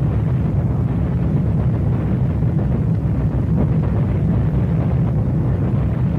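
Deep, continuous rumble of a bombing raid: bombs bursting on the ground, mixed with the drone of B-29 bomber engines, with no separate blasts standing out.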